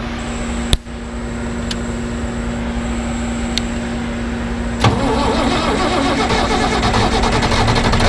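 John Deere 4020 tractor's six-cylinder engine starting up about five seconds in and settling into a fast, even running beat. Before it starts there is a steady hum with a sharp click about a second in.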